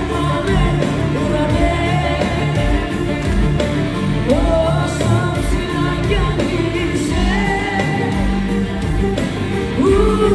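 Live band playing an amplified Greek pop song, with singing over the music.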